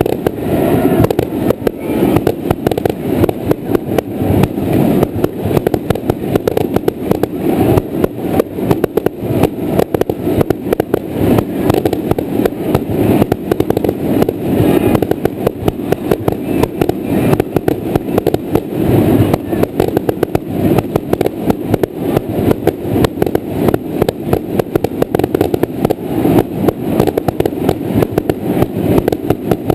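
Aerial fireworks shells bursting in an unbroken rapid barrage, several loud bangs a second.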